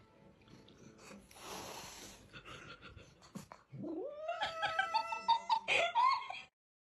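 A cat yowling: one long drawn-out call that starts a little before halfway, rises in pitch, and is held with a wavering tone before it stops abruptly.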